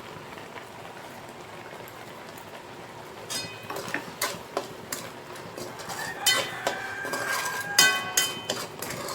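A metal spoon scraping and clinking against a kadai as thick beetroot halwa is stirred, starting about three seconds in and coming in irregular knocks with short metallic rings. Under it runs a faint steady hiss.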